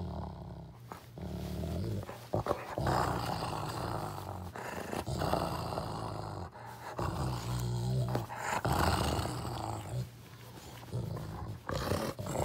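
Dog play-growling while mouthing a person's hand, in repeated low rumbling bouts of a second or two each, separated by short breaks.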